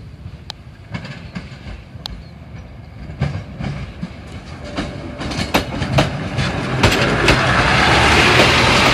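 KAI inspection railcar approaching and passing close by over station points and rail joints: wheel clicks that come faster and louder as it nears, over a steady low engine rumble.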